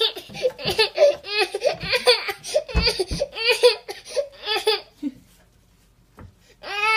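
A toddler's voice in a quick run of short, high-pitched vocal bursts that stop about five seconds in, with two dull thumps about three seconds in.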